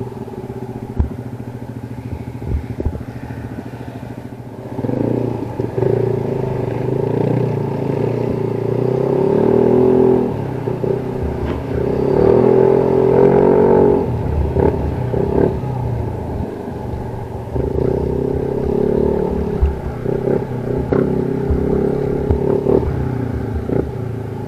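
Yamaha NMAX 155 scooter's single-cylinder engine through an Akrapovič full exhaust, riding along. It is low and steady for the first few seconds, then goes through several rises and falls in revs as it accelerates and eases off, loudest about halfway through.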